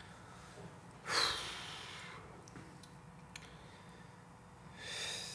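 A man breathing audibly: a sharp breath out through the nose about a second in, then a softer breath in near the end.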